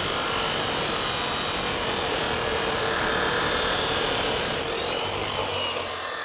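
Abrasive chop saw's cutoff wheel grinding through a threaded rod, a steady harsh hiss over the motor's whine. The cut ends about five and a half seconds in and the wheel runs on unloaded.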